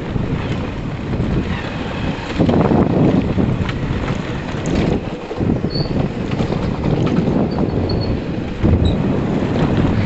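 Wind buffeting the microphone of a moving motorcycle, a loud gusty rumble that swells and drops, with the bike running over a gravel road underneath.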